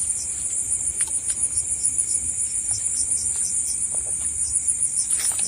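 Night insects, crickets, chirring in a steady high-pitched drone, with a second pulsing chirp repeating a few times a second.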